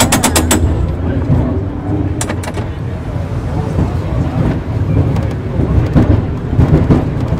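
A2 heritage tram running along street track: a steady low rumble of the car in motion, with a quick run of sharp clicks at the very start and a few more about two seconds in.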